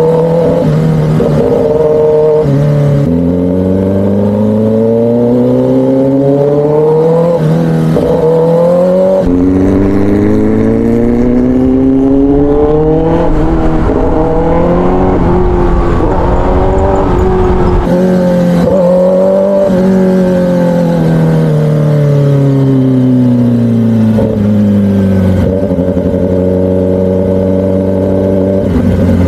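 Kawasaki ZX-10R's inline-four engine with a free-flow exhaust pulling through the gears. The engine note climbs over several seconds and drops sharply at each upshift, then falls away as the bike slows and settles to a steady cruise near the end.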